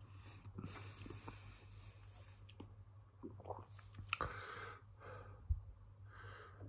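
A man breathing heavily and audibly through the mouth, with about three slow exhales, against the burn of a superhot chili he has just eaten, with small mouth clicks in between.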